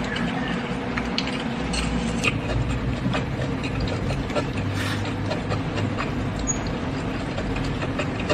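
A person eating up close with chopsticks: chewing and mouth sounds with many small scattered clicks, over a steady low hum.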